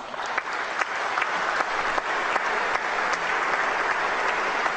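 Audience applauding: dense clapping that builds over about the first second and then holds steady.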